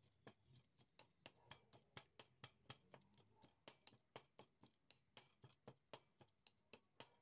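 Granite pestle pounding in a granite mortar, mashing hog plums into a chili-garlic paste: quick, even strokes at about four a second, each a short stone-on-stone knock, some with a brief high clink.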